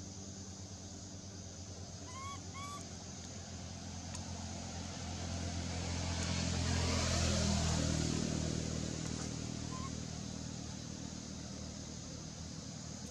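A motor vehicle passing by: a steady engine hum swells over several seconds, loudest a little past the middle, then fades away. Two short high chirps about two seconds in.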